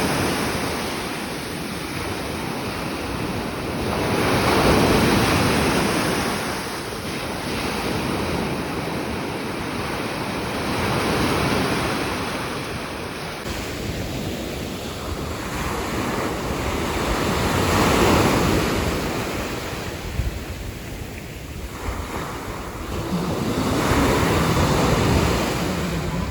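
Sea waves washing onto the shore, surging and receding about every six or seven seconds, with wind buffeting the microphone.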